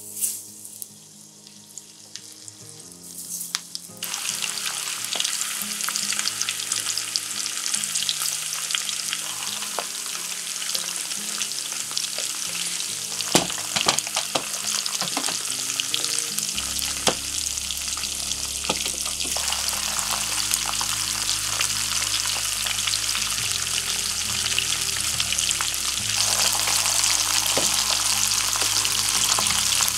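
Starch-coated chicken pieces (tatsuta-age) deep-frying in 180 °C oil in a frying pan: a dense sizzle of bubbling oil. It starts light as the first pieces go in and grows much louder about four seconds in as the pan fills, with a few sharp pops in the middle.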